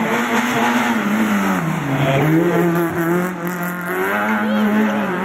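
Fiat Cinquecento rally car's engine revving hard through a corner. Its pitch drops about two seconds in, then climbs again, with short tyre squeals over it.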